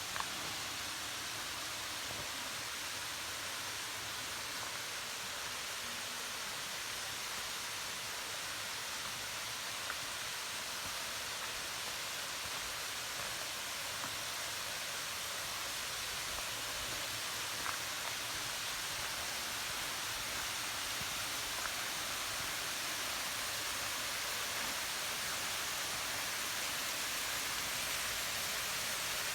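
Steady rushing of a waterfall, an even hiss of falling water that grows slightly louder toward the end.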